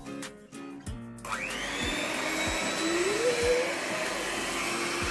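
Electric hand mixer switched on about a second in, its motor whine rising as it speeds up, then running steadily at high speed.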